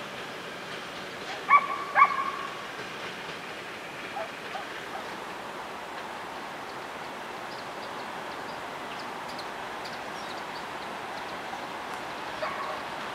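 A dog barks twice in quick succession about a second and a half in, then gives a few fainter barks later, over a steady background hiss.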